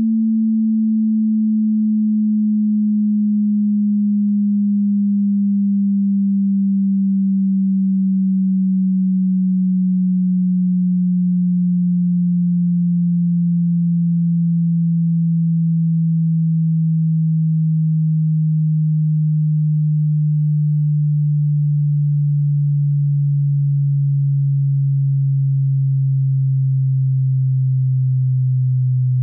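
Hearing-test sine-wave sweep: a single pure tone at a constant level, already low in pitch and sinking slowly and evenly lower.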